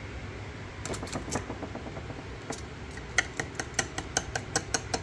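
Steel file scraping against a sintered 17-4 stainless steel part: a few short metallic scrapes about a second in, then a quick run of short strokes, about five a second, from about three seconds in. The hard, ringing bite of the file is the sign the part has sintered into solid steel.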